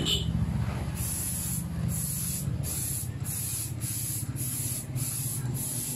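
Spray paint hissing from a nozzle in about eight short, evenly repeated bursts, each about half a second long, as coats are laid on.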